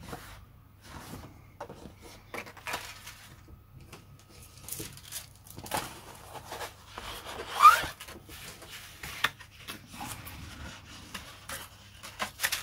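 Large sheets of waterslide decal paper being handled and turned over: scattered rustles and crinkles of stiff paper, with one louder, sharper crackle a little past halfway.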